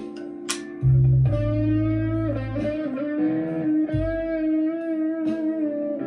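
Chapman ML1 Standard Traditional electric guitar played through a Marshall MG15CFX amp with a Behringer vintage overdrive pedal: sustained overdriven single notes over a low ringing note that comes in about a second in, with a wavering bend in pitch about halfway through.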